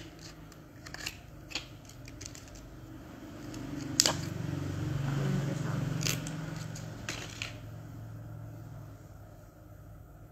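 Makeup tools and products being handled: a few sharp little clicks, the loudest about four seconds in, over a low hum that swells in the middle and fades.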